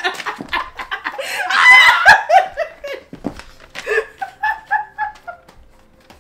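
Two women laughing hard, loudest about one to two seconds in, then a run of short, even laughs about five a second that die away near the end.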